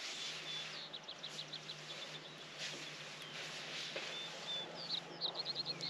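A songbird calling: short high whistles and rapid trills of about ten notes a second, loudest near the end, over a faint steady low hum.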